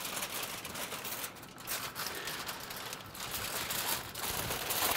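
Aluminium foil crinkling and rustling under gloved hands, with a few short pauses.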